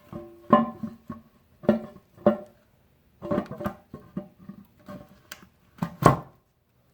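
Cast-iron Farmall H hydraulic pump being worked into its reservoir housing: irregular metal knocks and clunks that ring briefly, the loudest near the start and about six seconds in, as the part fails to seat on the first try.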